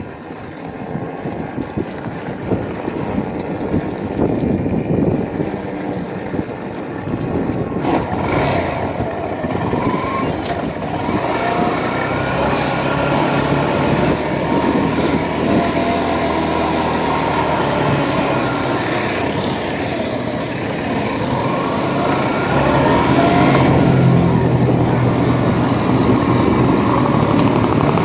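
Motorcycle engine running while riding, with wind rushing over the microphone. The engine note comes through more clearly partway through, changes pitch as the throttle varies, and grows louder toward the end.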